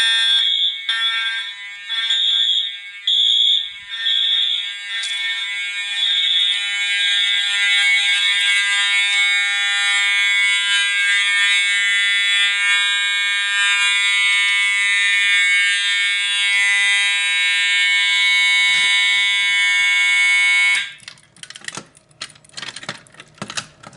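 Fire alarm horns of a test system, a Wheelock MT among them, sounding together: pulsing at first, then a steady, loud blare. About 21 seconds in the alarm cuts off abruptly and is followed by clicking and rattling.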